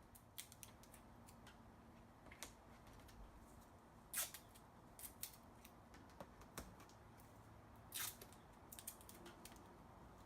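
Faint, scattered crackles and clicks of a vinyl decal sheet and its tape being handled and pressed into place against sheet metal, loudest about four seconds in and again around eight seconds, over near silence.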